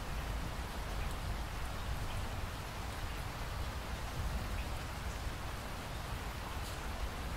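Steady rain falling, with scattered drops ticking and a low rumble underneath.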